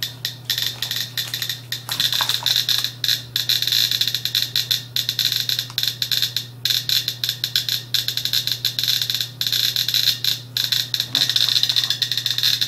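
GQ GMC-300E+ Geiger counter's clicker sounding rapid, irregular clicks, one for each count, as uranium-glazed Fiestaware is held near the tube, with the count rate rising.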